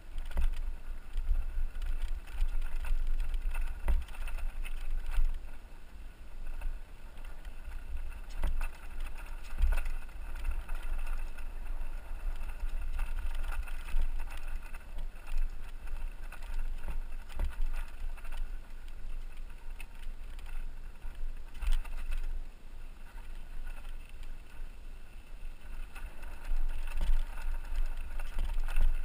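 Mountain bike rolling down a loose, rocky dirt trail: tyres crunching over gravel with frequent knocks and rattles from the bike over rocks, under a heavy, gusty wind rumble on the microphone.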